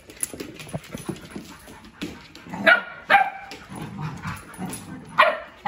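Dogs at play: four short, sharp barks, a close pair a little before the middle and another pair near the end, with scuffling and small clicks between them.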